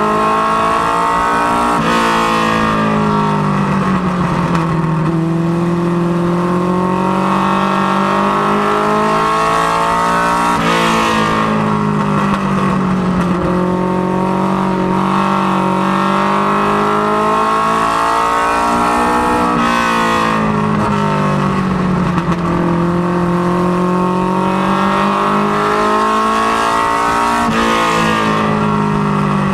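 Mustang LX notchback ministock race car's engine heard from inside the cockpit at racing speed on an oval. The revs ease off and the pitch sinks into each turn, then climbs again down each straight, about every nine seconds.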